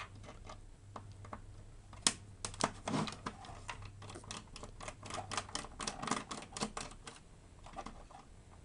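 Rapid small clicks and taps of plastic and metal parts and tools being handled while a PS4 console is taken apart, the clicks growing denser in the second half.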